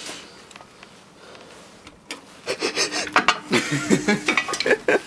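Metal key scraping and clicking in an elevator's key-switch lock. It is fairly quiet at first, then from about two seconds in comes a quick run of metallic clicks, rattles and scrapes as the lock is worked.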